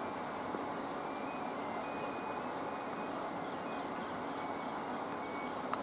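Steady outdoor background hum with a few faint high chirps about four seconds in, and one sharp knock near the end.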